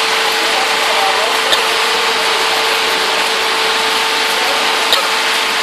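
Batch fryer machinery running steadily: an even hiss with a constant mid-pitched hum, and two faint ticks.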